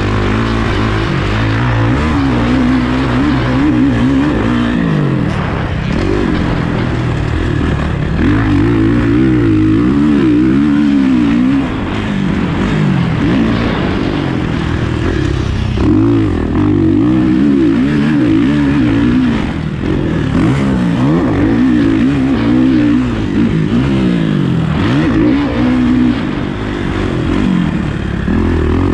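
Motocross dirt bike engine being ridden hard, its pitch rising and falling constantly as the throttle is worked on and off, with short drops in level as it shuts off.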